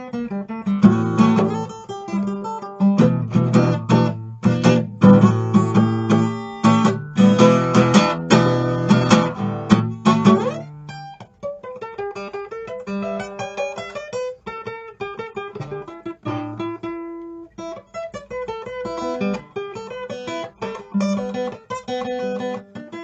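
Solo acoustic guitar playing an instrumental blues, fingerpicked and strummed. A loud, full passage with heavy bass notes gives way about ten seconds in to a softer, sparser run of single picked notes.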